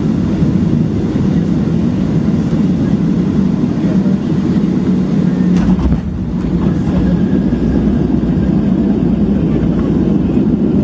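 Steady low rumble inside the cabin of a Boeing 737-700 rolling on the ground after landing, its CFM56 engines near idle. There is a brief dip in level about six seconds in.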